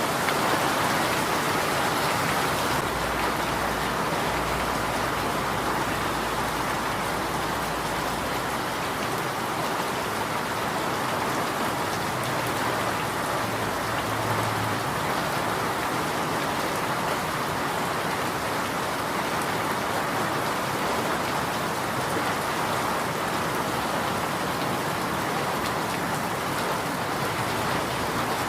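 Steady rain falling, an even hiss that holds without let-up, with a faint low rumble a few seconds in.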